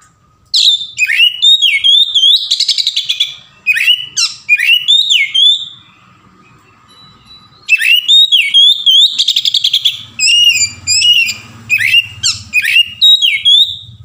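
Male oriental magpie-robin singing a loud, varied song of quick whistled phrases with sliding notes and rapid buzzy trills. The song comes in two long bursts with a pause of about a second and a half in the middle.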